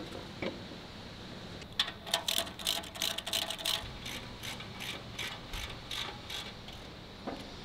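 Hand ratchet wrench clicking in quick, uneven runs for about four seconds, loudest at first, as the hydraulic power unit is bolted into the pallet truck's chassis. A few single metal knocks before and after.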